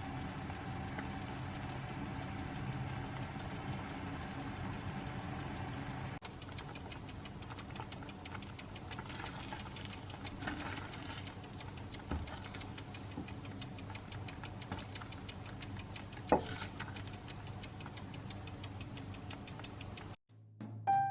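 Soft kitchen sounds over a steady hum: light ticking and pattering, with one sharper click about sixteen seconds in.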